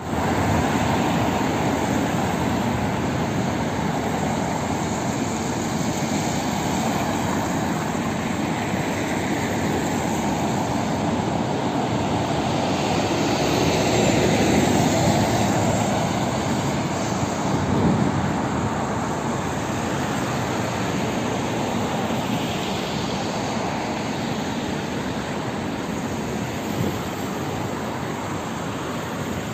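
Road traffic on a busy multi-lane street: a steady rush of car tyres and engines that swells as vehicles pass around the middle.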